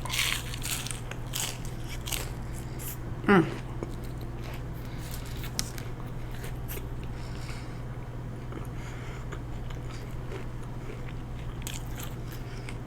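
Close-miked eating: crunchy bites and chewing in the first few seconds, a brief hummed "mm" about three seconds in, then quieter chewing over a steady low hum.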